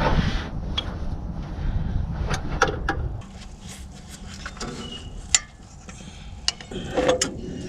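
Hand tools and metal parts clinking and tapping in scattered light strikes as the carburetor is taken off, over a low rumble that drops away about three seconds in.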